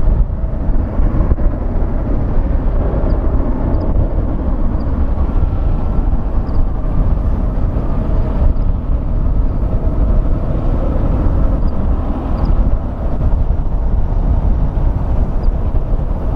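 Jet airliner engines running, a loud, steady rumble with a faint whine held above it.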